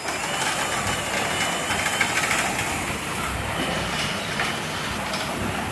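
Glidermatic GTS garage door opener running and driving the door: a steady mechanical noise that starts abruptly, the opener responding to the newly programmed remote.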